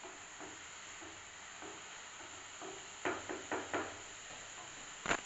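Wooden spatula stirring chopped vegetables in a non-stick kadhai, knocking against the pan: a few light knocks, then a quick run of four louder ones a little past halfway and one sharp knock near the end.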